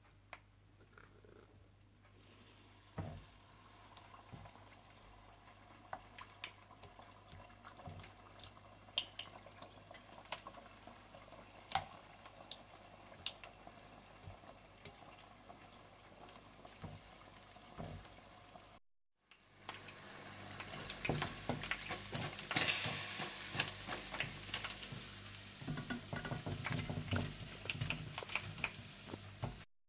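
Battered chicken pieces deep-frying in hot oil, a sizzling hiss with scattered crackles and pops. The sizzle is faint with occasional sharp pops at first, then after a brief break about two-thirds of the way through it is louder and denser with crackling.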